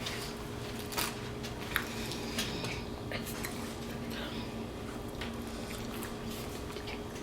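Eating sounds from a mukbang table: soft chewing and mouth noises, with a few sharp little clicks of utensils or dishes in the first few seconds, over a steady low hum.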